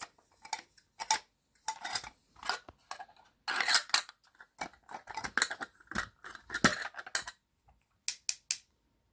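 Plastic burger press parts being handled and set down: a run of light plastic clicks and knocks with some scraping, then three quick sharp clicks near the end.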